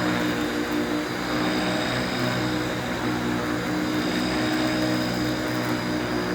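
Panasonic Performance Plus MC-6357 upright vacuum running steadily, its motor giving a steady hum with a thin high whine above it.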